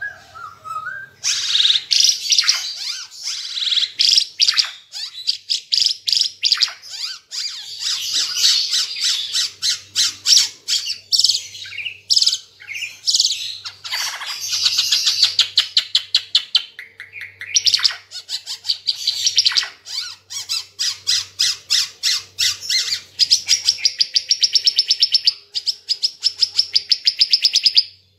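Ara Timor songbird singing loudly and almost without pause: rapid chattering phrases of sharp, high notes. It ends in a long, fast, even trill near the end.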